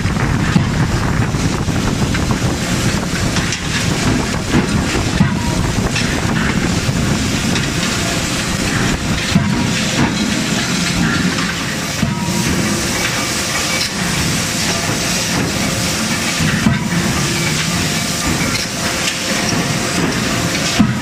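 Working noise of a 31.5 kJ CNC forging hammer line forging hot steel into hand tool blanks: a loud, steady hiss and rush, with a few scattered sharp knocks.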